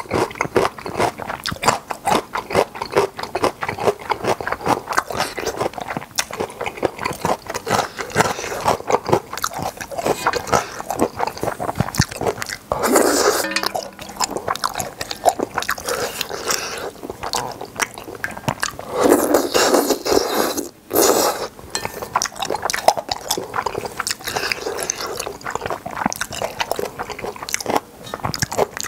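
Close-miked chewing of boneless chicken feet and thick Chinese glass noodles: a dense run of small sticky clicks and crunches, with a few louder, longer bursts of eating near the middle and about two-thirds in.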